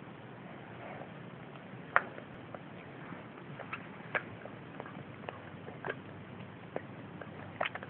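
Baby sucking on a plastic feeding bottle's teat: irregular soft clicks and smacks from the mouth, the loudest about two seconds in.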